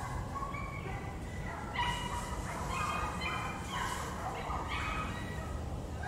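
Wild birds calling: a busy run of short, clear, overlapping notes, thickest from about two to five seconds in, over a low steady rumble.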